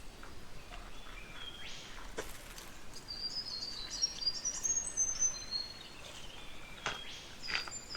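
A bird singing a quick run of short, high, thin whistled notes, about three to five seconds in, over a few brief rustles in the undergrowth.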